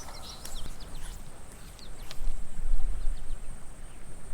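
Outdoor ambience by a small creek: a quick run of small bird chirps in the first second, with a few light clicks and a low rumble on the microphone that swells about halfway through.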